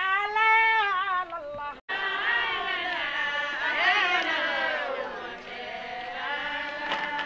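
Religious chanting: a voice sings long, drawn-out melodic lines that rise and fall, with the sound cutting out for an instant about two seconds in.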